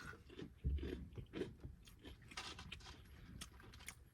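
Close-up chewing and crunching of battered fried fish, with irregular crisp crackles and wet mouth sounds and a dull low thump about two thirds of a second in.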